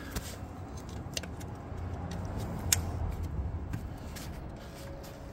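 Handling noise with a few small sharp clicks, the loudest about two and a half seconds in, as the wiring connector is pushed back onto a Prius throttle body.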